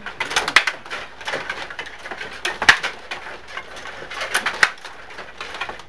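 Rod table hockey game in play: irregular clicking and clacking of the players' rods, figures and puck, with a few sharper knocks, one a little past two and a half seconds and two more around four and a half seconds.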